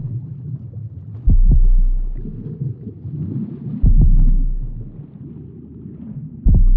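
Outro music: deep bass hits about every two and a half seconds, each struck twice in quick succession and slowly dying away, over a low sustained drone.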